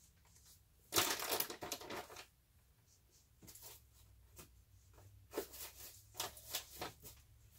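Packaged goods and plastic wrappers rustling and knocking as they are packed into a cardboard box. There is a loud rustle about a second in, then scattered softer rustles and taps.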